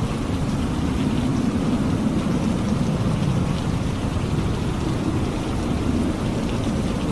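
Steady heavy rain, with a low rolling rumble of distant thunder that swells and fades beneath it.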